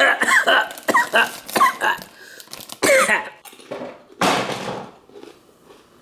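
Potato chip bag crinkling as a hand reaches in for a chip, mixed with short voice sounds. A single cough-like burst about four seconds in, then it goes quiet.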